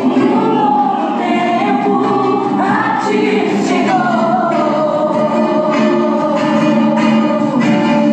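Gospel song playing: voices singing over instrumental accompaniment, with long held notes.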